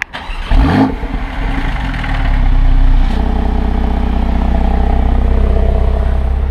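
Porsche 911 Carrera 4S (991.2) twin-turbo flat-six starting: it catches about half a second in with a quick rising rev flare, then settles into a steady, even idle from about three seconds in.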